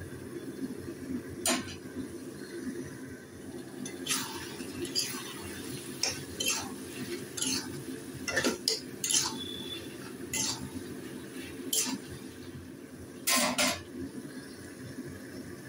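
Spatula scraping and clinking against a pan as a thick chicken-and-potato curry is stirred, in about a dozen irregular strokes, with the loudest double clink near the end, over a steady low hum.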